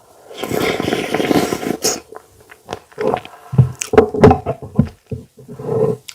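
Close-up mouth sounds of someone eating fufu: wet chewing and smacking that come in irregular bursts with short pauses.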